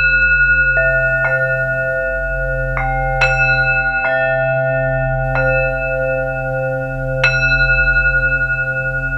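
Brass Tibetan singing bowls struck with a suede-covered mallet about seven times, roughly every second or two. Each strike leaves long ringing tones at several different pitches that overlap and slowly waver, over a steady low hum.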